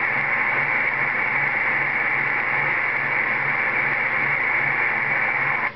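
CB radio receiver putting out a steady, loud hiss of static after the transmitter is unkeyed: the weird whooshing noise that comes on at unkey. A low hum pulses underneath, and the hiss cuts out for a moment at the very end.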